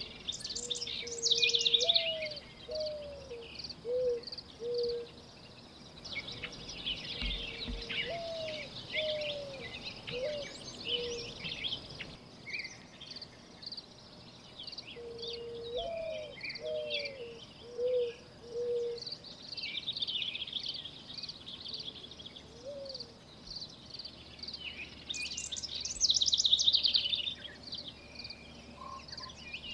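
Birds: a low cooing phrase, one held note then a few short rising-and-falling notes, repeated about every seven seconds, over busy high chirping and twittering of small birds that peaks in brief loud bursts near the start and near the end.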